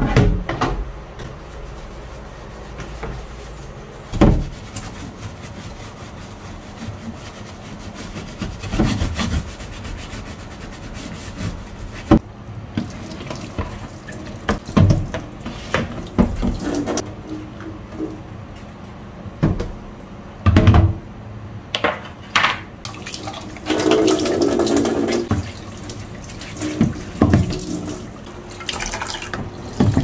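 Kitchen tap running into a stainless steel sink as a plastic dish drying rack is rinsed under it, with scattered knocks and clatters of plastic against the sink. About three quarters of the way through, the splashing grows louder for a couple of seconds.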